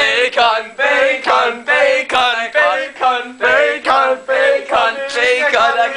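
A song with singing voices: quick, even sung syllables, about three a second, over a steady held accompaniment.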